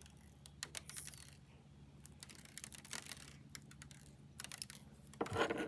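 Light scattered clicks and rattles of a small container of sprinkles being handled and shaken out, with a denser rattle near the end.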